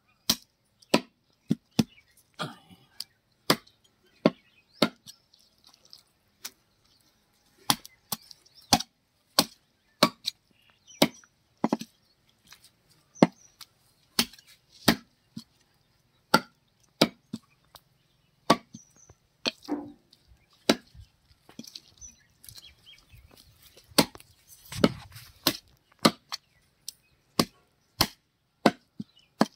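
Large knife chopping country chicken into pieces on a wooden log chopping block: sharp chops at an uneven pace, about one or two a second, with a pause of about two seconds after the first few.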